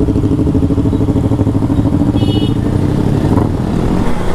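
Motorcycle with a loud exhaust running steadily while riding, a deep pulsing exhaust note at near-constant speed. A brief high beep sounds about two seconds in.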